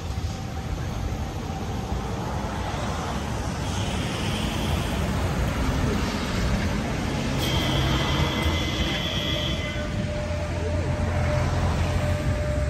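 City street traffic at a tram junction: trams and road vehicles running past with a steady rumble, and twice a high steady whine, about four seconds in and again around eight seconds.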